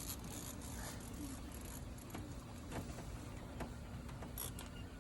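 Spinning fishing reel being cranked while a steelhead is played, with light mechanical clicking and whirring over a steady low hum.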